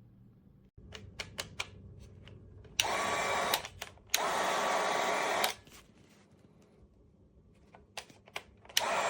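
Small cordless heat gun blowing air in two short bursts with a faint whine, switched off between them and starting again near the end. Several sharp clicks from the switch and handling come before the bursts and before it starts again.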